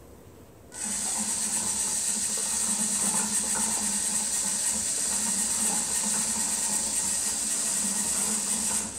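Small electric motor turning the 3D-printed plastic carousel of a cat feeder: a steady high whir with a low hum under it, starting about a second in and cutting off just before the end.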